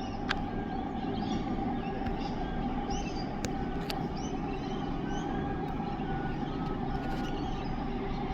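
Diesel locomotive engines of a coal train running steadily, the drone swelling at the start as the train draws near. Birds chirp over it throughout.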